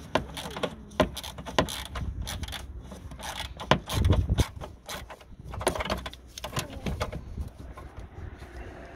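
Irregular metallic clicks and clinks of a 10 mm socket wrench working the bolt of a Dacia Logan's diesel fuel filter bracket, with a dull thump about four seconds in.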